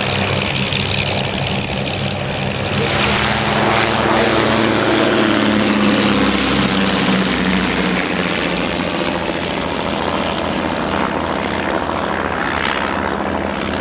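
The propeller engines of a twin-engined de Havilland Dragon Rapide biplane droning steadily under power as it takes off and climbs past, growing a little louder midway with a slight bend in pitch.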